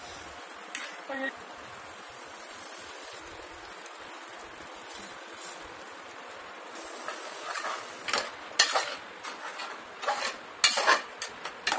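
Steel ladle stirring a thick curry in an aluminium pressure-cooker pot, clinking and scraping against the metal in quick strokes from about seven seconds in. Before that there is only a faint steady hiss.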